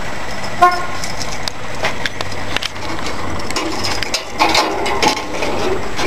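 Handling noise from a phone's microphone rubbing against clothing as it is carried: rustling and scuffing with scattered knocks and clicks, and a brief pitched sound about half a second in.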